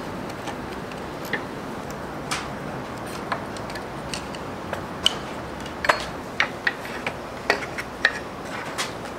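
Small metal clicks and taps of a screwdriver and steel lathe parts being handled during disassembly. They come at irregular intervals, about one a second at first and closer together from about halfway, over a steady background hiss.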